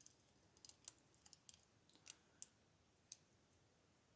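Faint, irregular small clicks of a short hook pick working the pin stack inside a steel padlock, about a dozen scattered ticks.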